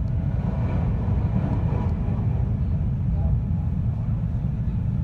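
Steady low rumble of a 521 series electric train running along the line, heard inside the carriage: wheels on rail and running gear.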